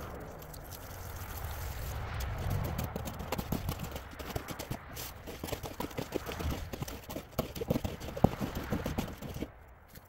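Dry concrete mix poured from a paper bag into a plastic tub with a rushing hiss. It gives way after two or three seconds to a hoe mixing concrete in the tub: irregular scrapes and knocks of the blade against the plastic.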